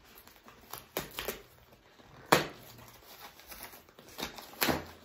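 Packaging being pulled and torn open by hand: a handful of sharp crinkling, ripping noises, the loudest about two and a half seconds in.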